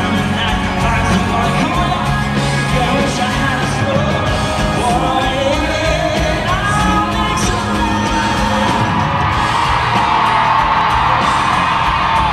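Live country-pop band performance: a male lead singer belting into the microphone over amplified electric guitar, bass and drums, ending on a long held note.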